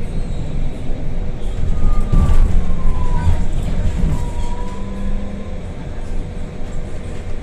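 CRRC C10 battery-electric bus running: a heavy low road and chassis rumble with a steady electric whine, and a higher whine that slides down in pitch from about two seconds in.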